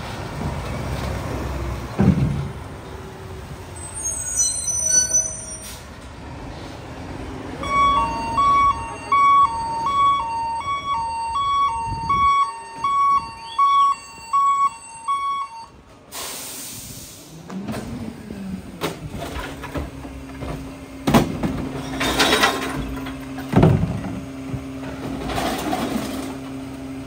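Mack Granite garbage truck moving, with its air brakes, then its back-up alarm sounding alternating high and low beeps, about one and a half a second, as it reverses. Just past the middle there is a sharp air hiss from the brakes. After that the engine runs steadily while plastic recycling bins knock and recyclables clatter into the Pak Mor rear loader's hopper.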